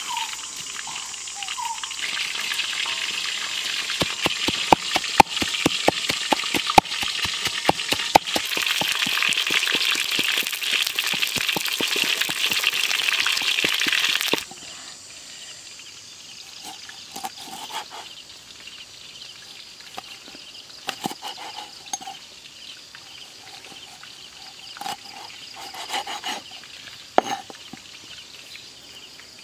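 Whole fish deep-frying in a wok of hot oil: loud steady sizzling with many sharp pops of spitting oil, cutting off suddenly about halfway through. After that, quieter: a few knocks of a cleaver cutting limes on a wooden board, with short chirps in the background.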